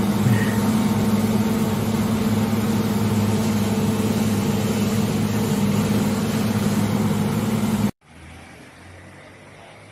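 Combine harvester running with a steady, loud engine drone that holds one pitch. It cuts off abruptly about eight seconds in, leaving only a much fainter background sound.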